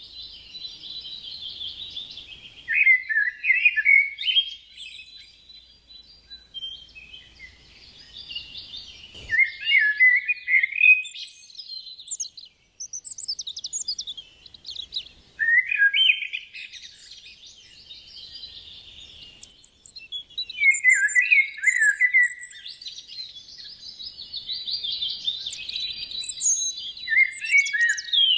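Birds chirping and singing, with louder bursts of song about every six seconds over a steady, high-pitched chorus of chirps.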